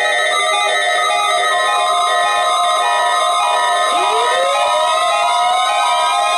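Weather alert radios sounding their alarms together for a weekly test: overlapping pulsed beeps and steady tones, with a further steady tone joining about a second and a half in and a siren-like tone sweeping upward about four seconds in.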